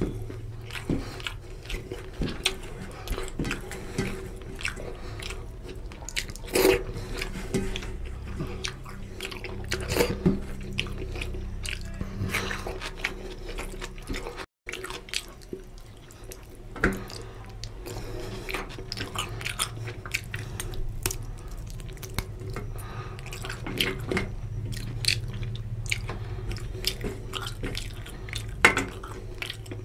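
Close-up sounds of eating oily mutton curry by hand: chewing, wet mouth sounds, and fingers squishing and scraping through curry on a steel plate, with many short, sharp clicks. The sound cuts out for a moment about halfway.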